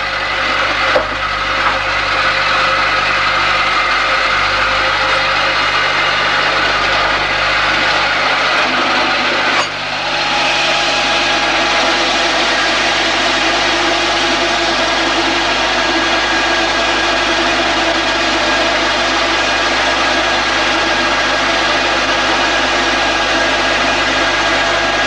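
Pneumatic rock drill running steadily as it bores a blast hole into the rock face, a loud, continuous hammering hiss of compressed air. The sound dips briefly and changes a little about ten seconds in, then runs on steadily.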